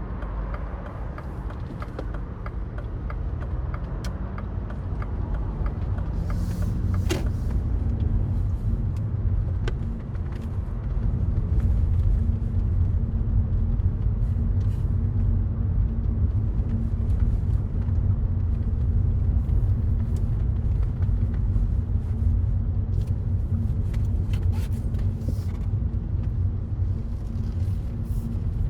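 Mini Cooper Cabrio's engine and road noise heard from the driver's seat: the engine note rises under acceleration for a few seconds, then holds a steady drone while cruising over a low rumble of tyres and wind. A brief click sounds about seven seconds in.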